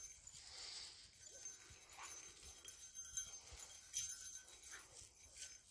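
Faint rustling footsteps and light jingling of a German shorthaired pointer moving about in dry grass, with a few soft taps.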